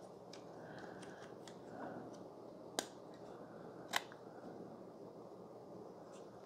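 Faint handling of a Manfrotto 504X fluid video head with two sharp plastic clicks about a second apart, as a small part is snapped into the bubble-level light and its on-off button is pressed.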